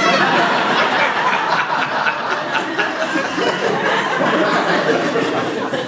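Theatre audience laughing together, a loud burst that breaks out suddenly, holds for several seconds and starts to die down near the end.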